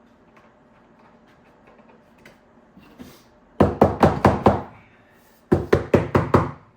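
Two quick runs of about five hammer blows each: a hammer knocking the last piece of flooring into place.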